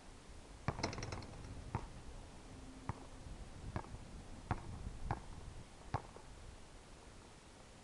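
Basketball dribbled on a hard outdoor court: a string of sharp single bounces, roughly one a second, with a quick cluster of rattling hits about a second in.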